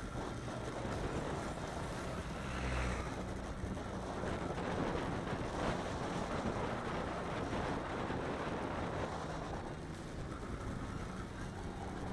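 Motorcycle engine running steadily while riding along a road, with wind noise on the microphone.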